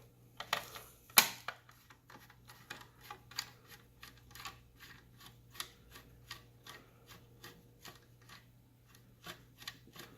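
A 2.5 mm Allen key working a small bolt out of a bike trainer's casing, with light metal clicks at about three a second. Two sharper knocks come about a second in.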